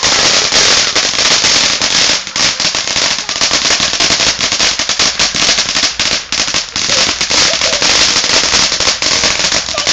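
Ground fountain firework spraying sparks with a loud, continuous crackle of many rapid small pops.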